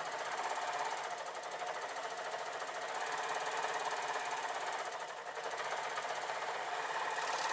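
Overlocker (serger) running steadily at a fast, even stitching rhythm as it sews and trims the front edge of a jacket.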